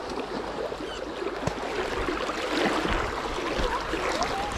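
River water flowing steadily, a continuous rush of current.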